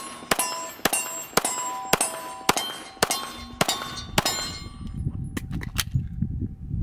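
Handgun fired about eight times, roughly two shots a second, each shot followed by the ringing of a hit steel target. The shooting stops about four seconds in for a magazine reload, with a few faint clicks.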